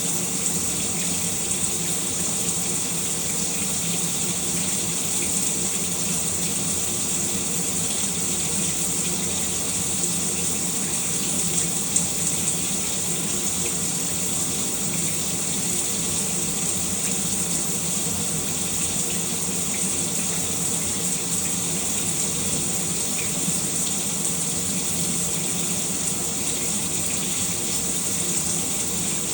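Shower water running steadily, a hissing spray with a low hum beneath it and a faint tap about 12 seconds in.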